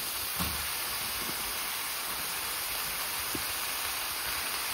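Chicken and peppers sizzling in a hot pan of bubbling honey, a steady hiss with a few faint taps.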